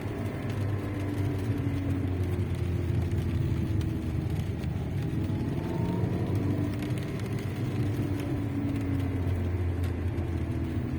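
Lada Vesta's engine and exhaust running on the move, with a droning, buzzing resonance whose pitch drifts as the throttle changes. The buzz comes from the exhaust flex pipe when the throttle is lifted, a sign the flex pipe is near the end of its life; the owner ties it to newly fitted exhaust hangers.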